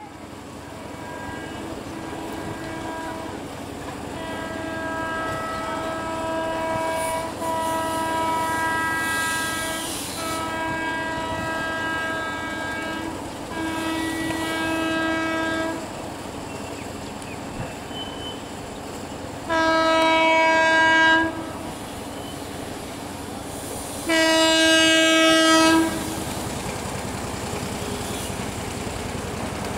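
WAP-7 electric locomotive's horn sounding over and over as the train approaches, in near-continuous calls with short breaks through the first half. Then come two louder blasts of a second or two each, a few seconds apart, with the train's running noise beneath.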